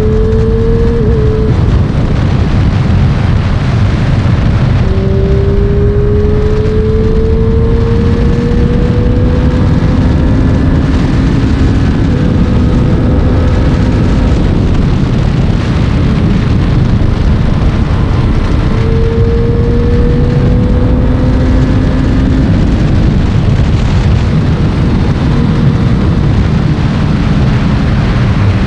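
2022 Triumph Street Triple 765 RS inline three-cylinder engine under way, its note climbing steadily and then dropping back several times as the bike accelerates and shifts gear, over a heavy low rumble.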